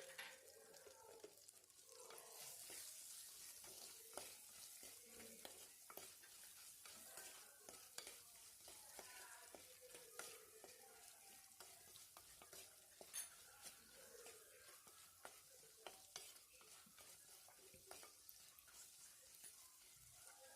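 Okra pieces sautéing in coconut oil in a pan, sizzling faintly, while a spoon stirs them with many small clicks and scrapes against the pan.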